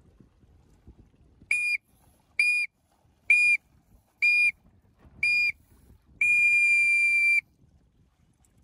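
A whistle sounding a start countdown: five short blasts about a second apart, then one long blast that marks the start.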